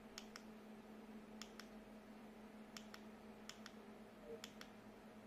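Small push button on a mini RGB LED controller pressed repeatedly, faint clicks in quick pairs about five times, over a faint steady hum.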